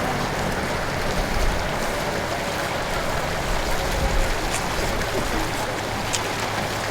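Hot spring water rushing and cascading steadily.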